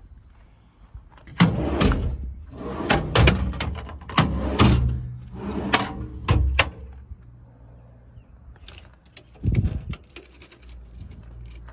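A run of metal clanks, knocks and latch clicks from a utility truck's service body, its compartment doors and latches being handled, with a heavier thud about nine seconds in.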